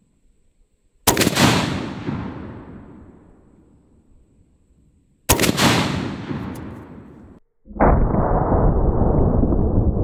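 Solothurn S-18/1000 20mm anti-tank rifle firing twice, about four seconds apart, each a sharp blast with a long rolling echo. After an abrupt cut to silence, a steady loud low noise takes over near the end.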